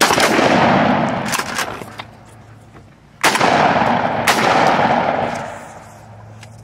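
Shotgun blasts at turkeys: one right at the start and a second about three seconds later, each ringing out and fading over a couple of seconds, with a further sharp crack about a second after the second blast.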